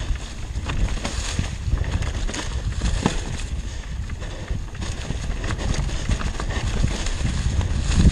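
Mountain bike rolling fast down a trail covered in dry leaves: tyres crunching through the leaves and the bike rattling and knocking over bumps in quick, irregular clicks, over a steady low rumble of wind on the microphone.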